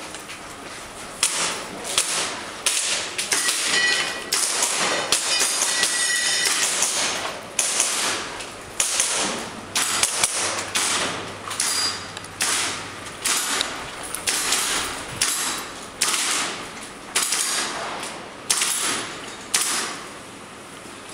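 Airsoft guns firing a long series of sharp shots, irregular and roughly one a second, with quicker clusters a few seconds in, each shot echoing briefly off the hard walls of a hall.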